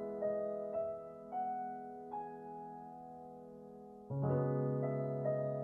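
Background piano music: a slow melody of single notes over held chords, with a new chord struck about four seconds in.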